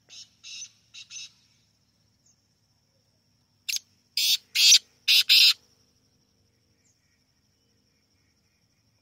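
Black francolin calling: four fainter short notes at the start, then about three and a half seconds in a loud call of five harsh notes in quick succession.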